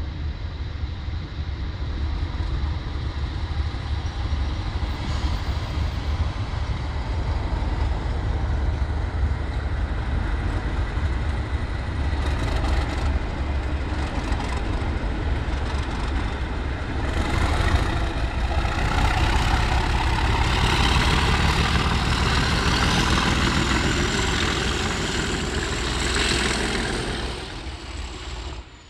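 A pair of Class 37 diesel locomotives with English Electric V12 engines running past slowly with a steady low rumble. Just past halfway they power up: the sound grows louder and a turbocharger whine rises in pitch as they pull away. It fades near the end.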